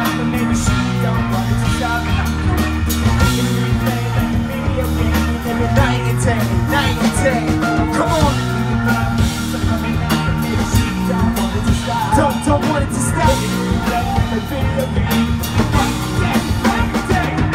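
Live band playing: drum kit, bass line, electric guitar and keyboard, with some singing over the top.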